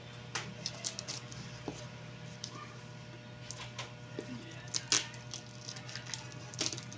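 Scattered light clicks and taps of small items and packaging being handled, over a steady low hum; the sharpest click comes about five seconds in.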